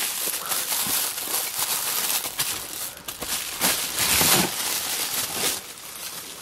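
Thin plastic bag crinkling and rustling as a speaker is pulled out of it by hand, irregular and loudest about four seconds in.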